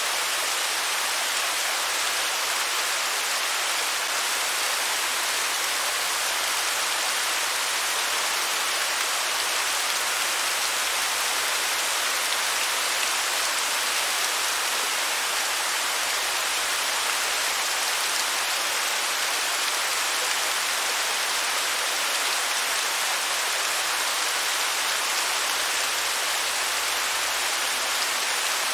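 Waterfall: a steady, even rush of falling water, bright and hissy, with little deep rumble.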